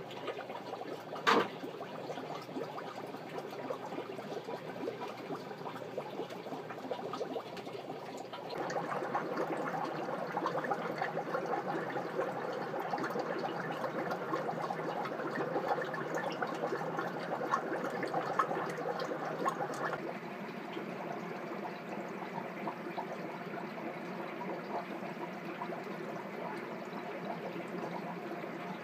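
Steady running, splashing water of an aquarium setup, with one sharp knock about a second in. The water noise gets louder about eight seconds in and drops back about twenty seconds in.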